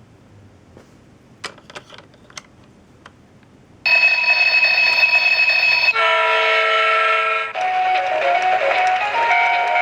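A few light clicks, then the Train Bank toy coin bank's electronic sound chip comes on suddenly with two long held tones, one after the other, followed by a tinny electronic melody.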